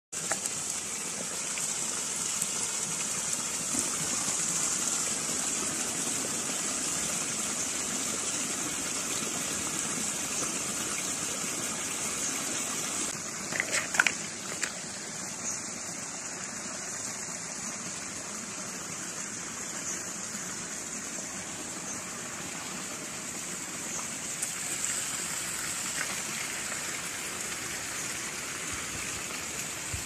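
Shallow river running over stones: a steady rush of flowing water. A brief cluster of knocks comes about halfway through.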